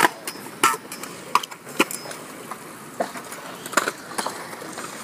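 Skatepark sounds: scooter and skateboard wheels rolling on concrete, with several sharp, irregular clacks of decks and wheels hitting the ground.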